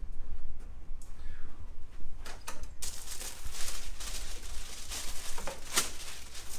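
Rustling and a few short knocks as a patient moves over and lies face down on a treatment table, over a steady low rumble.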